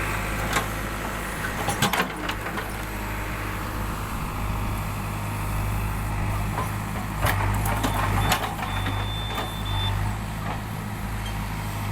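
A backhoe loader's diesel engine runs steadily, with several sharp metallic clanks, twice in the first two seconds and again after about seven seconds. A thin high tone sounds for a second or so past the middle.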